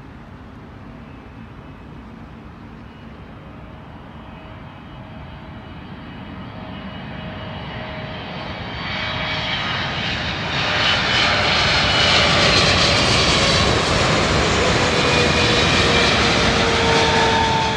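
Air Canada Boeing 777-300ER's two GE90 turbofans on short final to land. The sound grows steadily louder for about ten seconds as the airliner comes in low, then stays a loud jet roar as it passes close by, with a whine that slowly falls in pitch near the end.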